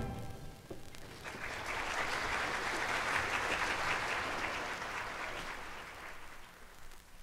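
Audience applauding after a concert band's final chord dies away. The applause swells about a second in and fades out near the end.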